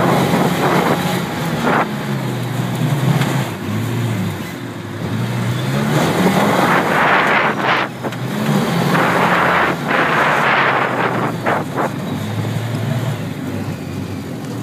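Off-road vehicle engine driving hard up a sand dune, its pitch rising and falling as the throttle changes, with loud bursts of rushing noise over it.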